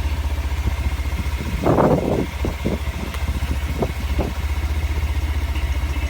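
Motorcycle engine idling with a steady low pulse. About two seconds in comes a brief burst of rushing noise, followed by a few short clicks over the next couple of seconds.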